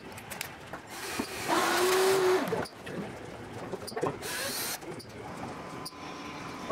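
Cordless drill-driver running for about a second, spinning a bolt into the wing's rear-spar mount bracket, with a steady motor whine, then a shorter noisy burst about four seconds in.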